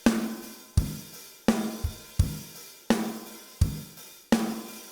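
Recorded drum kit playing a steady groove: kick and snare alternating about every 0.7 seconds, with hi-hat and cymbals, the snare ringing with a low tone. The drums are passing through an EQ-compressor plugin set flat and sound a little weak.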